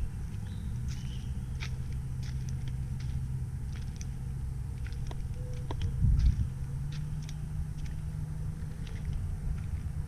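Honey bees buzzing around the hives as a steady low hum that swells and shifts pitch about six seconds in, with scattered faint clicks.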